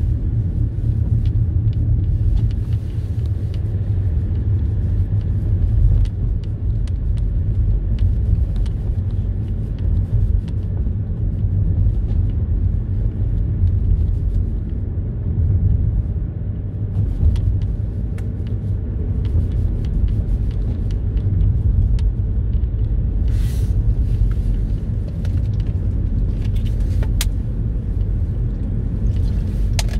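Car driving at town speed: a steady low rumble of engine and tyre noise heard from inside the car, with a few faint clicks and a brief hiss a little past the middle.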